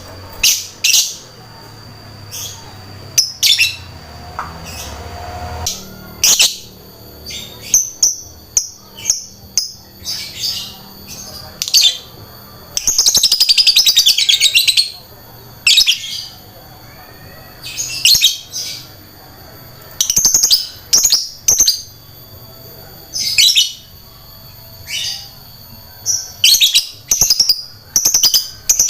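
Lovebird singing in a burst of shrill, sharp chirps in quick irregular clusters, with one long rattling trill of about two seconds near the middle. This is the lively, continuous song kept as a trigger recording to set other lovebirds singing.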